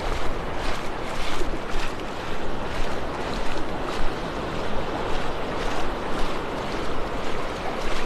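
Gentle surf washing onto a sandy beach, a steady rushing noise that swells and eases, with wind blowing over the microphone.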